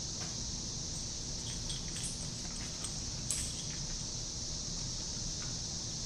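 Small dogs playing and tussling on a fleece bed: scattered light clicks and taps, one sharper click about three seconds in, over a steady high hiss.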